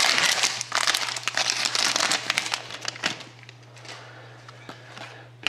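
Foil trading-card pack wrapper crinkling loudly as it is torn open and pulled off the cards, dying down to a faint rustle about three seconds in.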